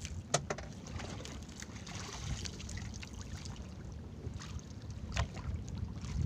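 Wind buffeting the microphone and sea water washing around a small outrigger boat, broken by a few sharp knocks: the loudest just after the start, another about five seconds in.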